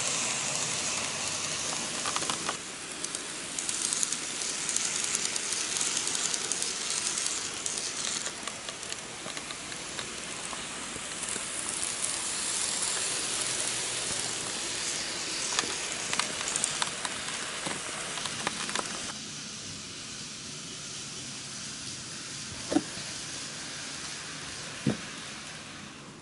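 N-gauge model trains running on the track: a steady hissing rush of wheels and motors with scattered clicks, quieter for the last several seconds, with two sharp clicks near the end.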